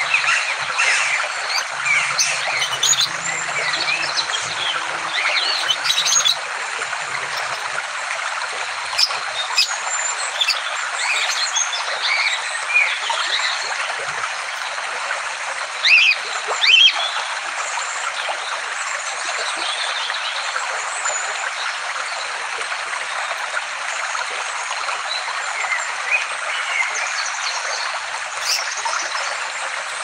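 Many small aviary birds chirping and twittering together in a dense, unbroken chatter, with a couple of louder sharp calls about halfway through.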